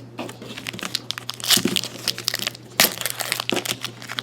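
Crinkling and crackling of a trading-card pack wrapper being opened and handled, an irregular run of small crackles.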